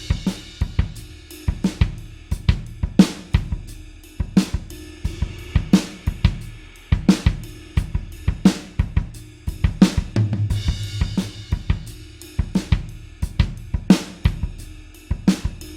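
Alternative-rock drum kit beat: kick drum, snare and hi-hat with cymbals, playing a steady repeating pattern with a strong accent about every one and a half seconds.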